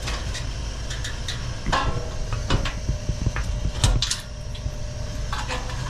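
Scattered metallic clinks and knocks over a steady low rumble, with a quick run of small ticks in the middle and the loudest clatter of knocks a little before four seconds in.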